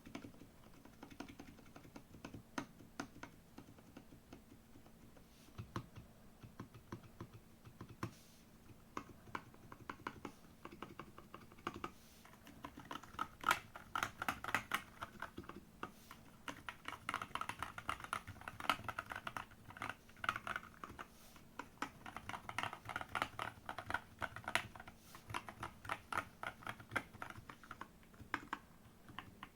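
Typing on a GK68 mechanical keyboard with JWK T1 Black switches and XVX keycaps, a steady patter of key clicks. The typing comes in fast runs about halfway through and again later, with a sparser, slower patter around them.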